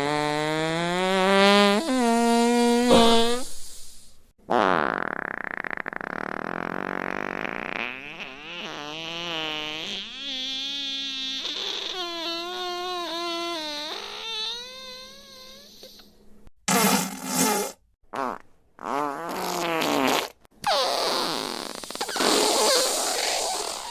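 A run of fart sound effects, one after another. Long pitched blasts, several wavering up and down, give way after about two thirds of the way through to shorter sputtering bursts and a hissier one.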